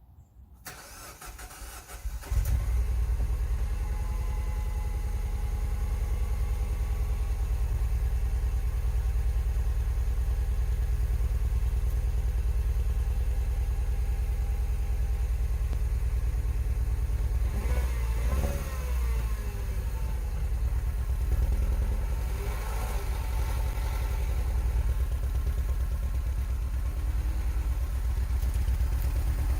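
A car engine starting about two seconds in and then running steadily, with a couple of brief shifts in pitch around two-thirds of the way through.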